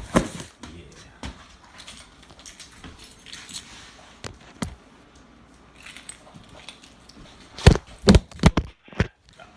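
A heavy cardboard box is set down with one sharp thump, followed by quiet handling noise. Near the end comes a quick run of about five loud, sharp sounds.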